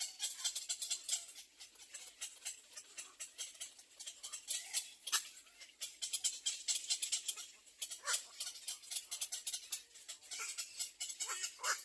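Nestling birds begging with rapid, high-pitched chirping and a few short downward-sliding calls.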